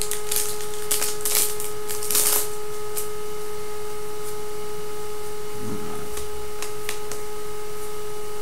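A trading-card pack being torn open and the cards handled: several quick crinkling rustles in the first couple of seconds, then a few faint card snaps and ticks. A steady electrical hum runs underneath.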